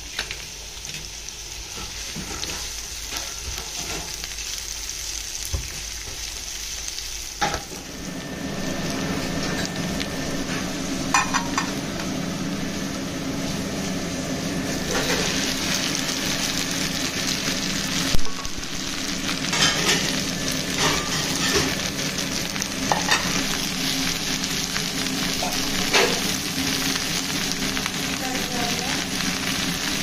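Onions and then cut okra frying in oil in a nonstick pan: a steady sizzle that grows louder and fuller about seven seconds in, joined by a low steady hum. A spatula stirs through it with a few knocks against the pan, the loudest about eighteen seconds in.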